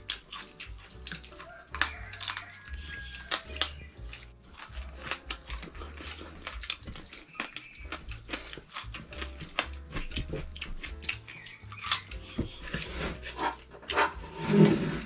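Close-up eating sounds: wet chewing, lip-smacking and mouth clicks as a man eats fried food with his fingers. Near the end come a few louder gulps as he drinks from a mug.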